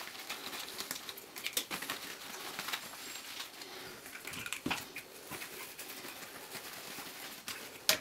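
Microfibre cloth rustling and rubbing over a black plastic Dyson V6 part as it is wiped dry and polished, with scattered light clicks of the plastic being handled and a sharper knock near the end.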